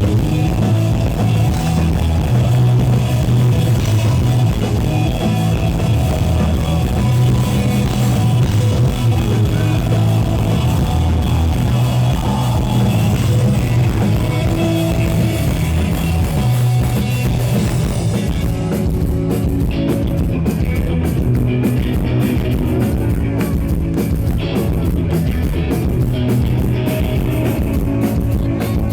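Live rock band playing loud through a festival PA: electric guitars, bass and drum kit, with some singing. About two-thirds of the way through the cymbals drop away and the playing turns choppy and stop-start.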